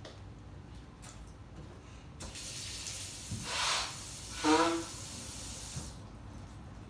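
A person sneezing: a breathy burst, then a loud, short voiced sneeze about four and a half seconds in, over a steady hiss that stops about six seconds in.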